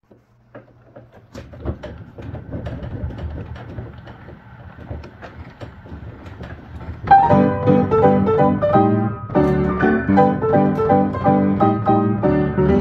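Player piano starting a paper music roll: its pneumatic mechanism hums and clicks softly while the roll's leader runs through, then about halfway through the piano comes in loudly, playing a lively song arrangement from the roll.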